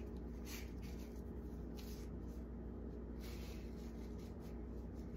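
Fabric bow tie and its strap rustling and rubbing in the hands as they are handled: a few short brushing rustles over a steady low room hum.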